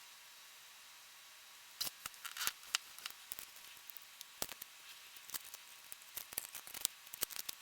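Sheet of plastic polarizer film being cut to size, with irregular sharp snips and crackles starting about two seconds in.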